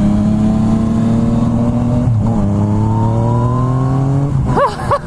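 Yamaha MT-09's 847cc inline-three engine through an Akrapovic carbon full exhaust, pulling under steady acceleration with its pitch climbing gradually. About two seconds in the pitch drops quickly, as at an upshift, then climbs again. A voice briefly starts near the end.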